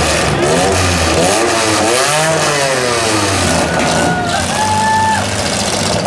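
Compact demolition derby cars' engines revving up and down, the pitch rising and falling over several seconds. In the second half a steady higher tone holds for about a second and a half and steps up once in pitch.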